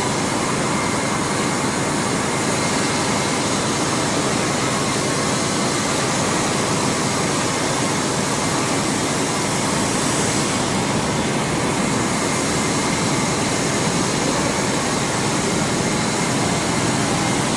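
Steady, even roar of running machinery that holds level throughout, with no strokes, knocks or rhythm.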